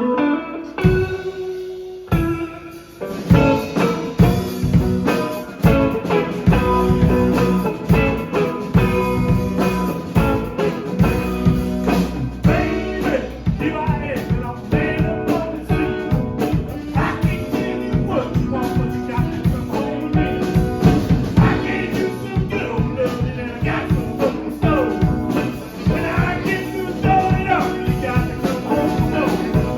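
Band music: guitar and a drum kit playing a blues-rock groove with a steady beat.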